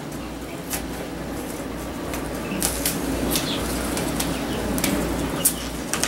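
Light rustling and scattered small clicks of hands handling rosemary seeds and their packet, over a steady low hum.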